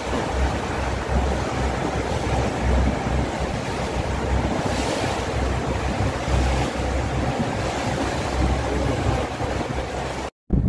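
Wind buffeting a phone microphone: a steady rushing noise with uneven low rumbling gusts, breaking off abruptly near the end.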